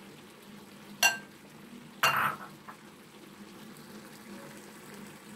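Pan of okra stew simmering on the stove with a low, steady bubbling, broken by two sharp clinks of kitchenware about a second in and about two seconds in, the second a longer clatter.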